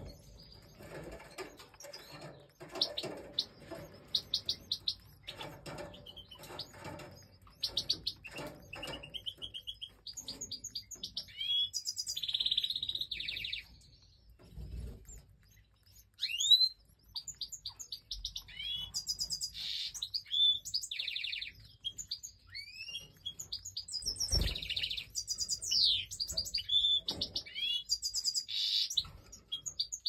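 Goldfinches chirping while the nestlings are fed at the nest. A rapid, scratchy chatter in the first third gives way to quick series of high, thin chirps and down-sweeping twitters.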